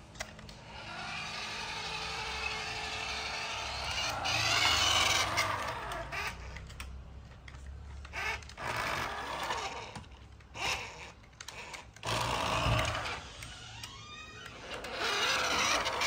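Toy remote-control cement mixer truck's small electric drive motor and plastic gears whirring as it drives across a tiled floor, starting and stopping in spurts, with the pitch rising and falling as it speeds up and slows.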